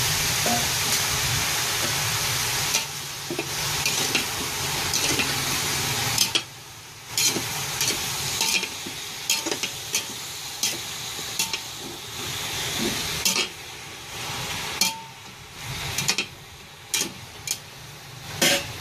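A metal spoon stirs diced pork, carrots and potatoes in a steel pressure-cooker pot, clinking and scraping against the pot again and again, over a steady sizzle that grows fainter about six seconds in.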